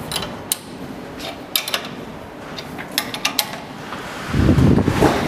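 A wrench clinks against the nuts and bolts of an elevator landing door's hanger, giving a series of sharp, irregular metal clicks. Near the end a louder, low rumbling noise comes in.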